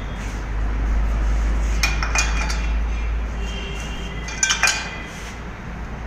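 Metal tools and parts clinking against each other during an oil change: a few sharp ringing clinks about two seconds in and again around four and a half seconds, over a steady low rumble.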